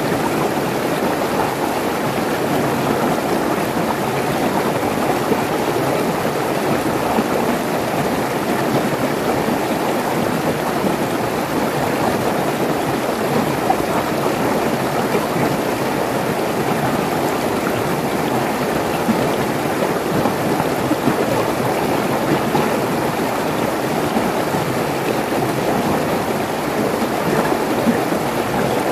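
Mountain stream rushing and splashing over rocks in small cascades, a steady, unbroken sound of running water.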